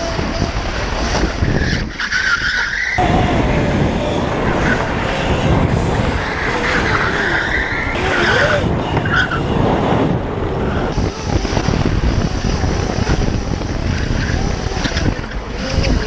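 Electric drift kart sliding across asphalt, its tyres squealing in repeated screeches while the motor's whine wavers up and down with the throttle.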